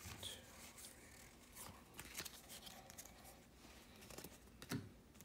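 Faint papery slides and clicks of Pokémon trading cards being moved one by one through a handheld stack, with a soft knock near the end.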